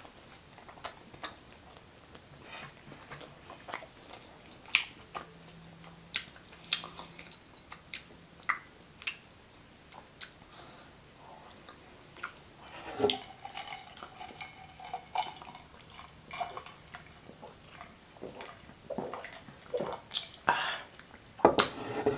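Close-miked eating sounds: wet chewing of a mouthful of butter chicken and rice, with many short mouth clicks and lip smacks. A few louder mouth noises come near the end.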